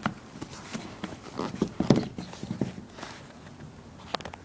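Handling noise of a hand working the insole out of a sneaker: irregular scrapes, rustles and soft knocks as the shoe is gripped and tugged, with a sharp click near the end.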